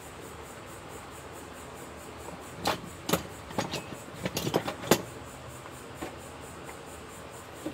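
Steel case of an Avaya G350 Media Gateway being handled and pried at its lid, giving a quick run of sharp metallic clicks and knocks in the middle, the last one the loudest.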